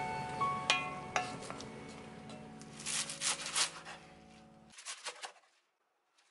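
Background music fading out, overlaid by a kitchen knife chopping garlic chives on a wooden cutting board: a quick run of cuts about three seconds in and a few more about five seconds in.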